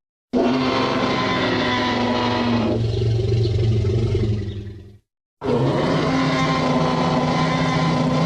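Tyrannosaurus rex roar sound effect of the Jurassic Park kind: two long, loud roars separated by a brief silence.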